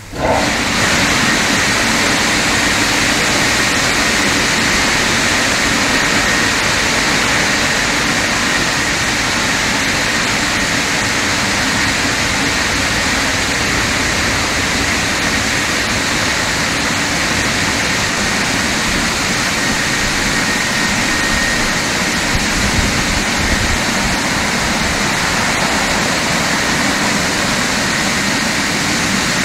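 Older-style dryer blowers on a WashTec SoftCare Evo gantry car wash running at full power during the drying pass: a loud, steady rush of air with a high whine over it.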